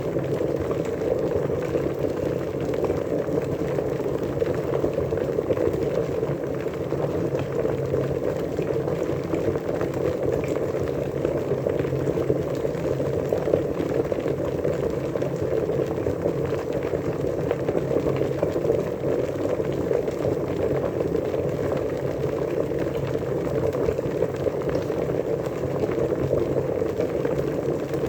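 Water at a rolling boil, with dense bubbling that holds steady throughout.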